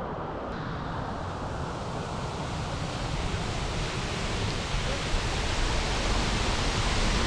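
Waterfall's rushing water: a steady, even hiss that grows gradually louder.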